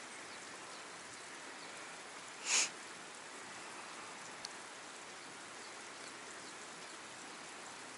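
Steady rush of flowing stream water, with a brief, louder rustling burst about two and a half seconds in.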